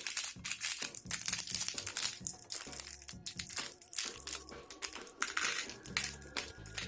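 Crinkly candy packaging, a tiny cardboard animal box of chocolate candies, being handled and pulled open: a dense run of irregular crackles and rustles.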